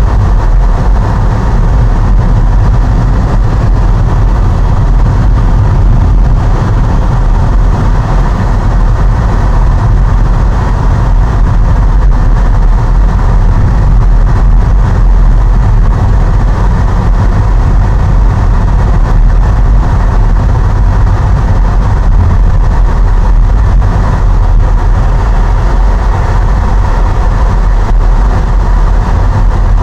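Steady low rumble of a car driving, engine and tyre noise heard from inside the cabin, with no change in pace throughout.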